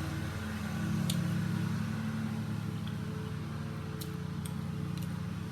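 Lawn mower engine running with a steady low drone, with a few faint clicks over it.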